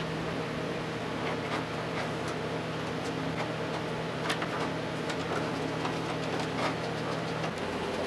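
Faint clicks and scrapes of a hand screwdriver turning 1.5-inch screws into cross dowels, over a steady low hum that stops near the end.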